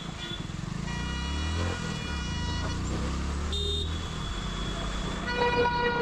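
Road traffic on a wet road: vehicle horns honking over engine rumble and tyre noise. A horn sounds briefly about a second in, a short toot comes a little past halfway, and a louder, longer horn starts near the end.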